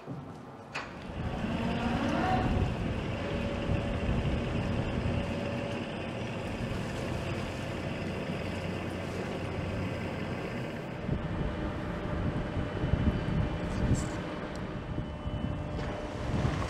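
Wind buffeting the microphone in gusty low rumbles, with a faint steady mechanical hum underneath.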